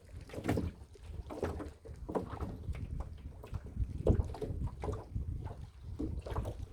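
Water splashing in repeated bursts, about one or two a second, over a low rumble of wind on the microphone.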